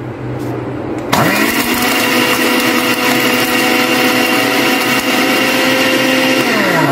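Anex electric blender-grinder motor switched on about a second in. It spins up quickly to a steady high whine while grinding dry roasted chickpeas and seeds to a fine powder, then winds down near the end as it is switched off.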